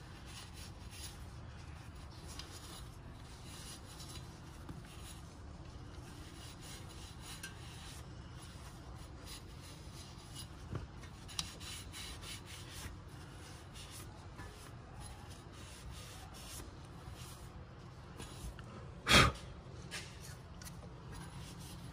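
A cloth shop rag rubbing and scraping over a metal wheel spindle as it is wiped clean, in repeated short strokes. One sharp knock about three seconds before the end.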